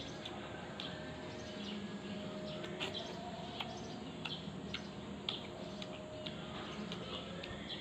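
Quiet outdoor background with small birds chirping in short, high chirps, one or two a second, and a few faint clicks.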